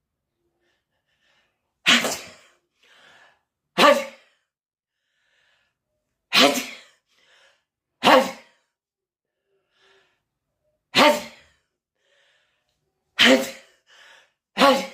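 A person sneezing over and over from a cold: seven sharp sneezes roughly every two seconds, with faint breaths between some of them.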